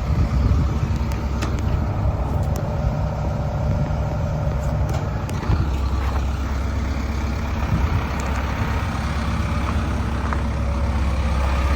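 Kobelco SK210LC-10 excavator's diesel engine running steadily at idle, a continuous low hum.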